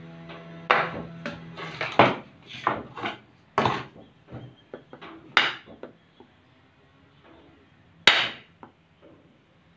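Sharp knocks and taps of a bar of Dove soap and a knife being handled on a hard tabletop, coming thick and fast for about five seconds. After a lull comes one loud sharp knock about eight seconds in, as the knife blade comes down on the soap.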